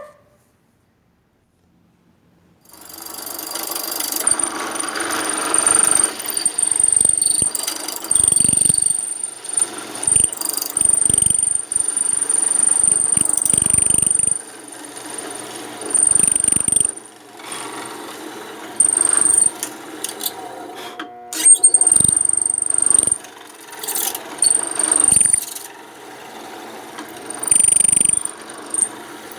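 Electric drill fitted with a square-hole mortising chisel adapter boring into peroba wood, starting about three seconds in and running in repeated bursts with short pauses. A high whine comes and goes as it cuts.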